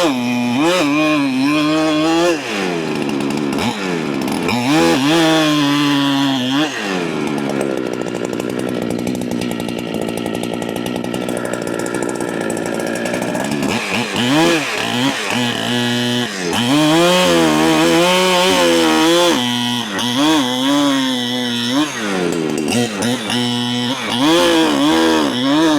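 Large Holzfforma clone chainsaw cutting through a big white oak log, its engine revving and pulling down under load. For several seconds around the middle the pitch sinks lower and rougher as the saw bogs deep in the cut, then climbs back to high revs.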